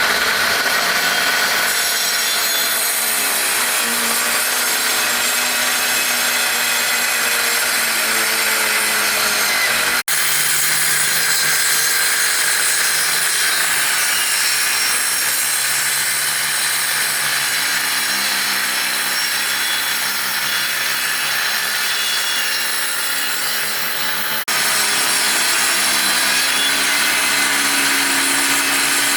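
Powered woodworking machine running and cutting wood, its motor pitch dipping and recovering as it works through the timber. The sound breaks off abruptly twice and resumes at once.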